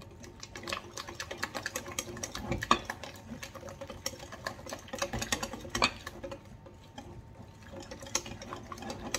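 Hand whisk beating a runny egg, milk and flour batter in a glass bowl: quick, repeated clicks of the wires against the glass with a wet sloshing sound.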